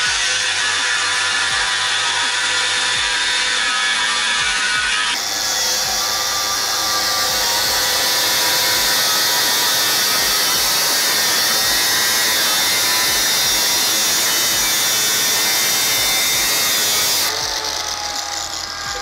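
Angle grinder with an abrasive cut-off disc cutting through the steel wall of a compressor air receiver tank, a loud steady grinding screech with the motor at full speed. Near the end the cut stops and the grinder spins down with a falling whine.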